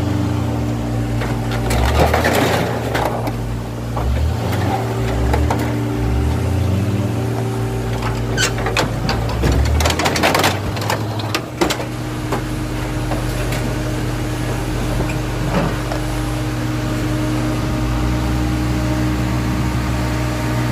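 John Deere 544K wheel loader's diesel engine running steadily, changing pitch partway through. Crunching and banging of crushed sheet metal come a couple of seconds in and again around the middle, as the loader's forks work the flattened box truck out of the car crusher.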